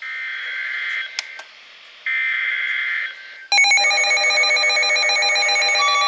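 NOAA weather radio receivers sounding an incoming warning alert. First come two roughly one-second bursts of warbling SAME data tones, the digital alert header. About three and a half seconds in, many radios' alert alarms go off at once as a loud chorus of overlapping beeping tones.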